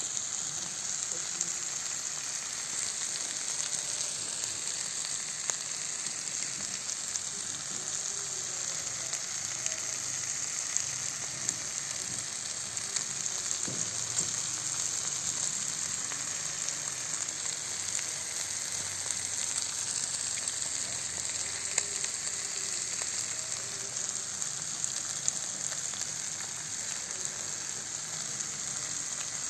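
Sausages, tomato halves and green peppers sizzling on a flat round saj griddle: a steady hiss with scattered small pops and crackles.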